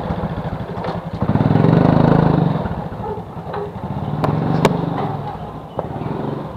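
Small motorcycle with a sidecar vendor cart, its engine running and revving as it pulls away and rides off. A couple of sharp clacks come past the middle.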